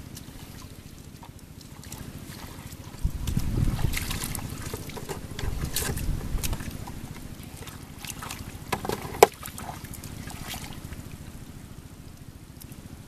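Muddy water splashing and sloshing as a person scoops and works a shallow puddle with a plastic bowl and bare hands, with two louder spells of splashing and a sharp knock about nine seconds in. Wind buffets the microphone throughout.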